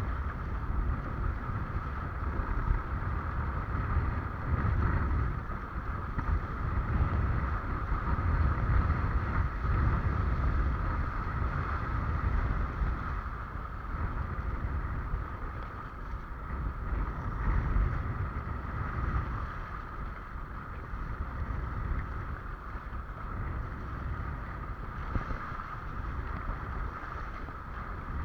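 Wind rumbling on the microphone and water rushing past a windsurf board under sail, swelling and easing every few seconds, with a steady high hum running underneath.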